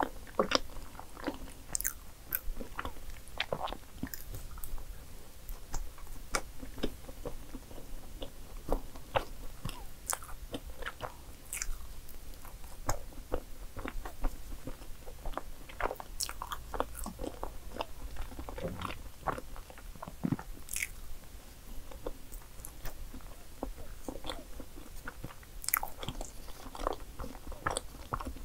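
A person chewing mouthfuls of dark chocolate layer cake, heard as many small, irregular wet mouth clicks.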